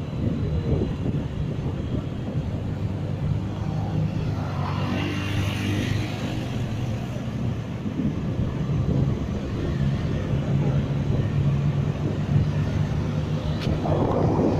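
A motor vehicle engine running steadily, with road and wind noise, and a swell of hiss about five seconds in.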